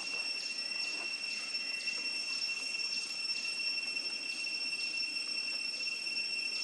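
Steady high-pitched insect drone, with a chirp pulsing about twice a second over it.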